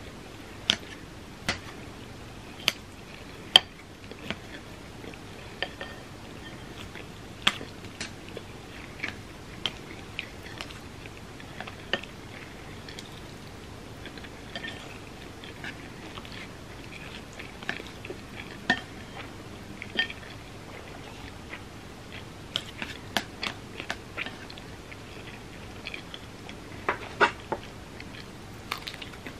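Close-miked chewing of food, with sharp mouth clicks at irregular intervals of about a second and softer chewing between them. The clicks come more densely near the end.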